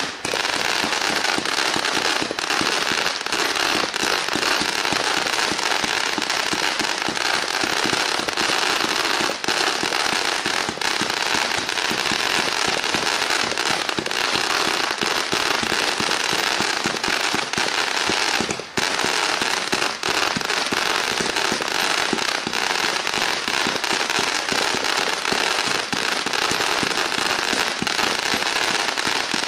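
A Fisherman Fireworks 'Rapid Fire' 500-gram zipper cake firing: a dense, nearly unbroken stream of rapid shots and crackling stars, with one brief dip about two-thirds of the way through.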